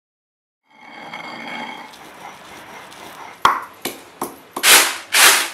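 Stone pestle pounding in a stone mortar: three sharp knocks about a third of a second apart, then two louder, longer, harsh crushing strokes. A soft ringing tone sounds before the knocks.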